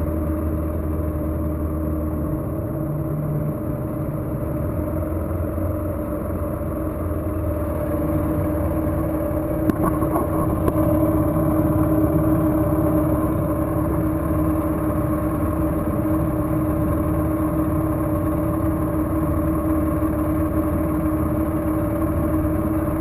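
1983 Mercury Classic 50 hp two-stroke outboard running steadily at low speed, its note even, getting a little louder partway through.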